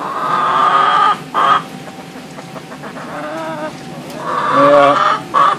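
Hens calling in loud, drawn-out, wavering calls, with shorter, quieter calls between them and a second loud run about four seconds in. It is the fussing 'talking' of wet hens just brought in from the rain.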